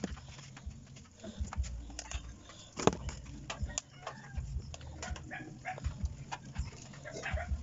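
Kitchen knife scraping scales off a whole fish: a quick run of irregular scrapes and clicks, the sharpest about three seconds in. A few short animal calls sound in the background.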